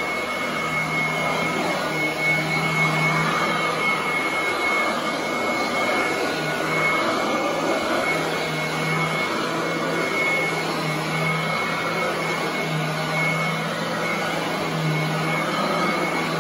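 Royal commercial upright vacuum cleaner running while pushed back and forth over carpet. It makes a steady rushing whine with a thin high tone, and a low hum that comes and goes every couple of seconds.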